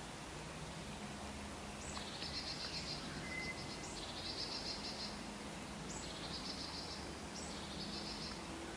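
Outdoor wildlife ambience: a high, buzzy trilling call repeated four times, about every two seconds, over a steady background hiss, with one short thin whistle.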